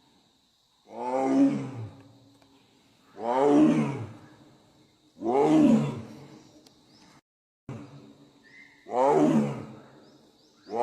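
Bengal tiger roaring: four long roars about two seconds apart, each rising then falling in pitch, with a fifth beginning at the very end.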